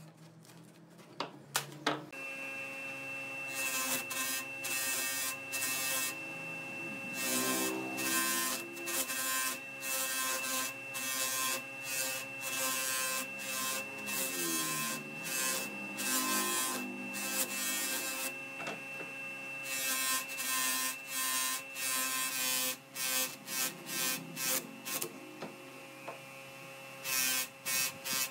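A couple of sharp knocks, then an electric bench motor spinning an abrasive sanding disc on its spindle starts a steady hum. A wood slice is pressed against the disc again and again, each contact a burst of rasping sanding, and the hum dips in pitch and recovers a couple of times under the load.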